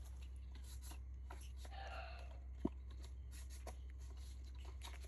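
Quiet room with a steady low hum and faint scattered small clicks and rubbing noises, with one sharper click about two and a half seconds in.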